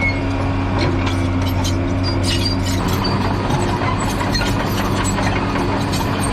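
Bulldozer's diesel engine running steadily, its note shifting slightly about three seconds in.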